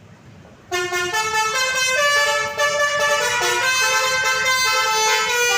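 Basuri bus's telolet horn, a multi-tone musical air horn, playing a melody of several notes at once that change pitch in steps. It cuts in suddenly under a second in and is loud.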